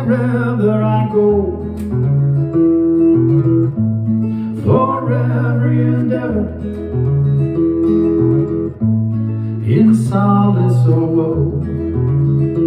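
Acoustic guitar with a capo playing held, ringing chords, with a man singing a line at the start, again about five seconds in and again about ten seconds in.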